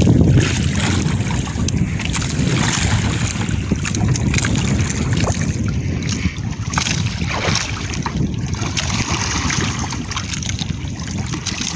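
Wind buffeting the microphone over the wash and slap of waves against a small outrigger boat at sea, a steady rushing noise.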